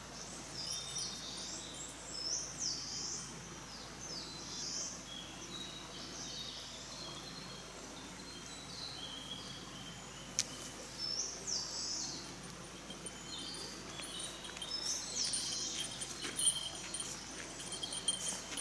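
Songbirds singing in woodland: short phrases of high, sweeping notes repeated every second or two over a faint steady high insect-like whine. Near the end, sharp clicks of footsteps and gear come in.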